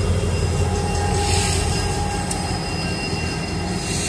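Diesel freight locomotives and the first covered hopper car rolling slowly past: a steady low engine rumble with wheel-on-rail noise and a thin wheel squeal.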